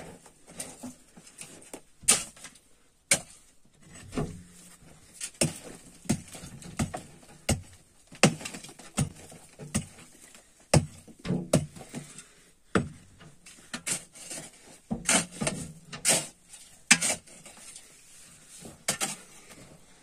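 A long-handled digging tool striking into dirt and rubble over and over, sharp knocks at an uneven pace of about one a second, some coming in quick pairs.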